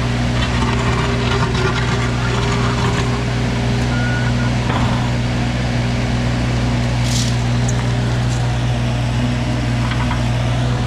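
Wacker Neuson mini excavator's diesel engine running at a steady speed, with a few brief clanks and scrapes from the machine at work.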